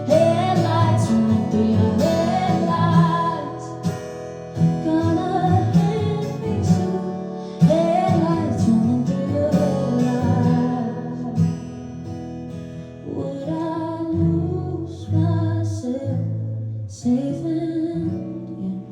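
Live acoustic pop song: a woman singing, with long wavering notes, over acoustic guitar.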